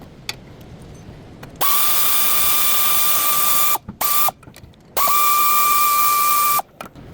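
Pneumatic wrench or ratchet running in three bursts, a long one, a short one and another long one, each a hissing steady whine that spins up at the start, as wheel or brake hardware is run off on the rear brakes of a Ford Taurus.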